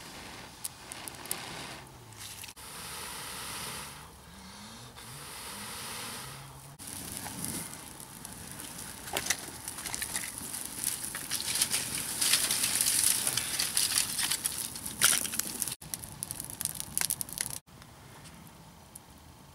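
Crackling and hissing at a campfire used for cooking, with many sharp pops, heard in several short cut-together clips. It is loudest and busiest in the middle and later part.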